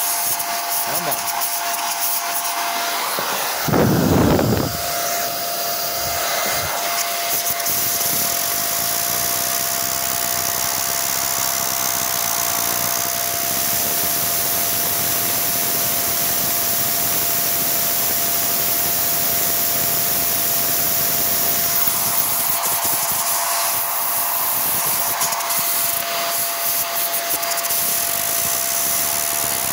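XPower electric air blower running steadily, its air jet blasting through a washed drone's brushless motor to blow the water out. A steady whine sits under the rushing air, which briefly gets louder about four seconds in.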